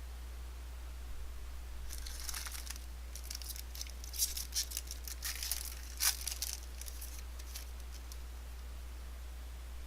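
Foil trading-card pack wrapper being torn open and crinkled: a few seconds of crackly tearing and rustling with sharp clicks, over a steady low hum.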